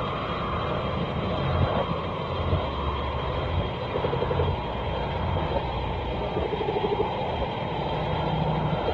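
Hedorah monster sound effects: a dense, continuous low rumbling drone with short pulsing buzzes over it, around four seconds in and again near seven and eight seconds.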